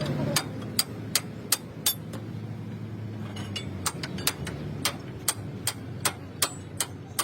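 Hammer striking metal in a quick, steady rhythm, about three blows a second, over a low steady hum.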